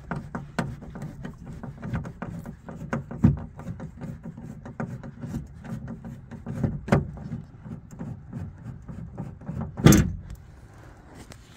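Clicks, knocks and metallic rattles of a car door's window regulator being unscrewed and worked free from inside the door, with one louder clunk near the end.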